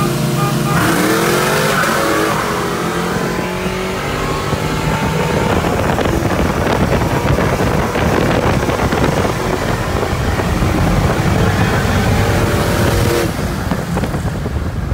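Pickup truck engine at full throttle under hard acceleration, heard from inside the cab with road and wind noise: the revs climb in rising sweeps about a second in, the engine is held high, and it backs off near the end.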